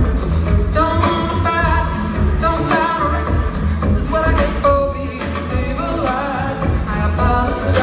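Live pop-soul band playing a song with a woman singing lead, backed by upright bass, drums, electric guitar and keyboards.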